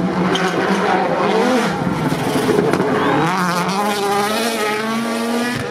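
Racing car engine under load, its note rising and falling as it revs through the gears.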